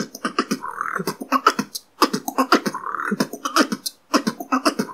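Beatboxing: a vocal drum pattern of kick drum and outward tongue-bass buzz, then kick drums, hi-hat, outward K snare and double rimshots, the phrase repeating about every two seconds.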